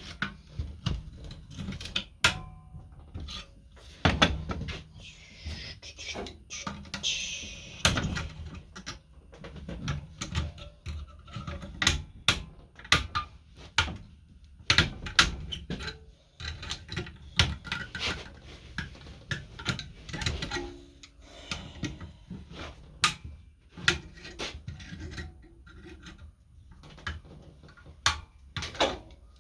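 Irregular clicks, taps and clinks of hand tools and small metal parts being handled during repair work on a throttle return spring, with a brief hiss about five seconds in that lasts a few seconds.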